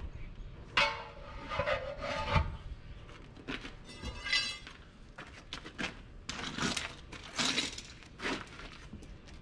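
Irregular scraping and rubbing strokes with light metal clinks: tire irons working a 16.9-30 tractor tire's rubber bead against the steel rim. About eight strokes, each under a second.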